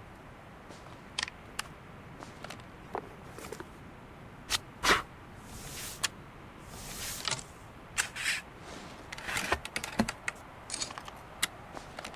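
A Harpers Ferry flintlock pistol being handled between shots: an irregular string of sharp clicks and knocks, the loudest about halfway through, with a few short scraping swishes in between.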